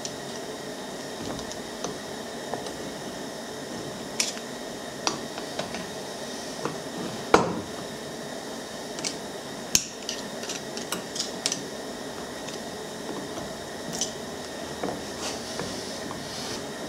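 Scattered light metallic clicks and clinks as the parts of a Sno-Way plow's DC pump motor are handled and fitted together during reassembly, the sharpest about seven and a half seconds in and again near ten seconds.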